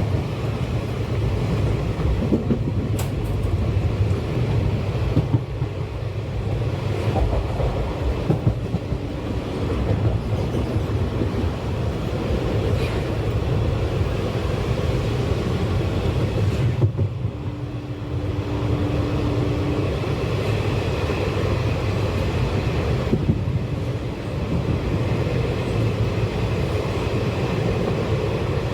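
Train wheels running on the track, heard from aboard a moving passenger train: a steady rumble with occasional sharp clicks.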